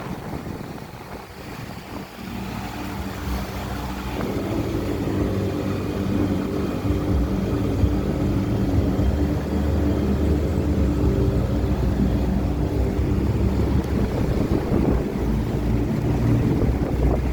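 McQuay MLC50D floor-standing air conditioners running: a steady hum of fans and compressors with several low droning tones, growing louder over the first few seconds and then holding even.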